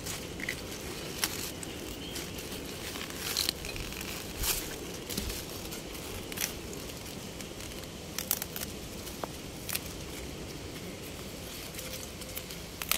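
Pak choi being harvested by hand: crisp snaps and crackling rustles as the outer leaves and stems are broken off and handled, a dozen or so scattered clicks at irregular intervals.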